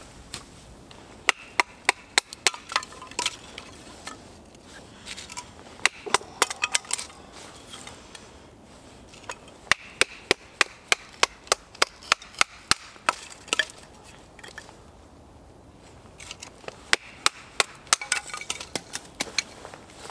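A fixed-blade knife being batoned down through dry wood to split kindling: sharp knocks of the baton on the blade, in four bursts of several strikes a second, with the wood splitting.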